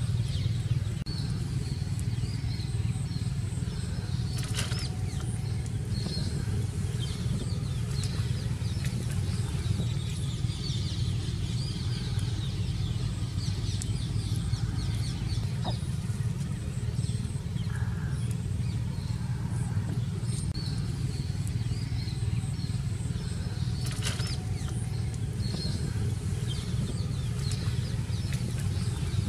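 Steady low hum with many faint, short bird chirps scattered throughout.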